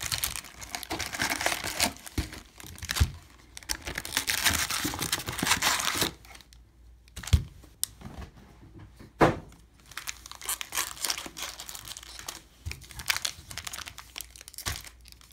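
2019 Topps Baseball foil trading-card packs crinkling and rustling as they are handled and stacked, dense for about six seconds. Then it quietens to scattered rustles, with two sharp taps about two seconds apart.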